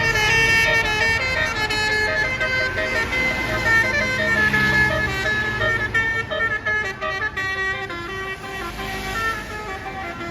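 Bus 'telolet' horns, Basuri-type multi-tone air horns, playing a stepping melody of several notes sounded together, over the low rumble of the bus engine.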